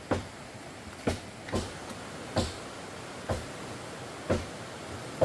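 Sharp knocks repeating roughly once a second, each with a short ringing tail, over a steady background hiss.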